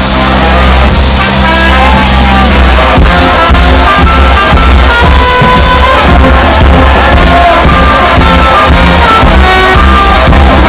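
Loud band music with a heavy, steady bass and held notes.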